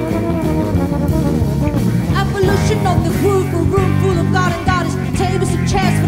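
Jazz band playing live: a melody line weaving over a steady bass line and drum kit.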